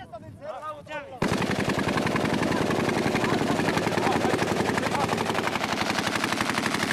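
A brief shout, then a long, unbroken burst of rapid automatic gunfire beginning about a second in and lasting about six seconds.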